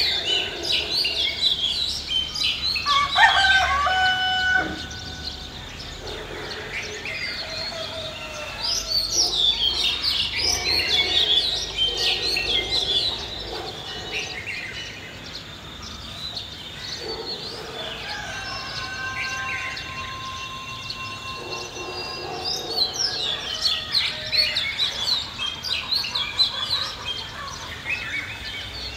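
Village ambience of many small birds chirping over and over, with a rooster crowing about three seconds in.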